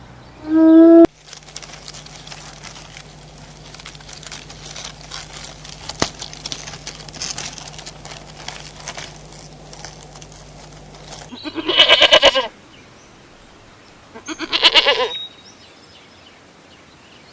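A pitched animal call cuts off about a second in, followed by several seconds of crackling, clicking background noise. Then two wavering sheep bleats, about two and a half seconds apart.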